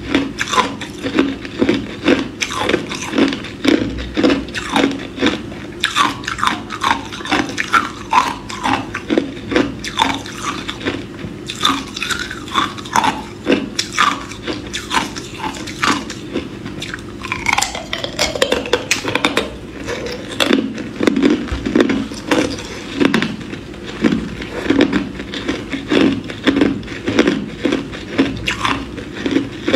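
A person biting and chewing hard clear ice: a steady run of sharp crunches and cracks as the ice breaks between the teeth, several to a second.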